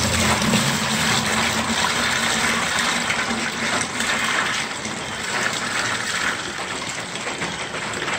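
Water pouring in a steady gush from one plastic 5-gallon bucket into another, filling it. The lower part of the sound fades out about two seconds in.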